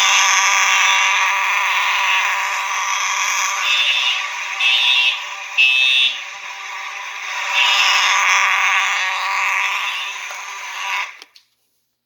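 Two fire alarm horns sounding together: a Simplex 4901 horn and a Simplex TrueAlert horn strobe on code 3, the temporal pattern showing as three short blasts about four to six seconds in. Both cut off suddenly near the end.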